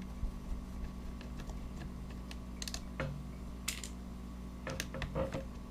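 Scattered light clicks and taps of small plastic parts and screws being handled as the legs of a 3DR Solo drone are taken off, over a faint steady hum.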